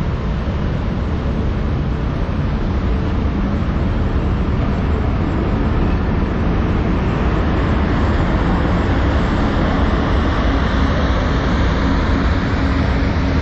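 ET42 electric locomotive hauling a heavy loaded freight train close by, a loud steady rumble of motors and wheels on rail. A high whine rises and grows louder over the last few seconds.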